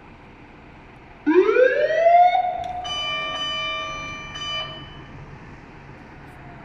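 Fire station siren sounding for a routine test: it starts about a second in, rises steeply in pitch, holds a steady tone for about two seconds, then cuts off and fades.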